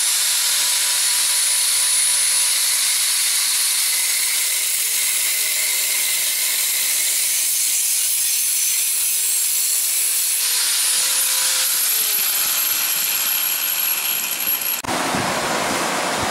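Handheld angle grinder with an abrasive disc running against steel, a steady hiss over a thin high motor whine as the disc bites into the welded square tubing and plate. It stops abruptly about a second before the end, giving way to a rougher noise.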